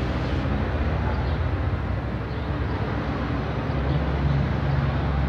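Steady low rumble of city street traffic, swelling slightly near the end.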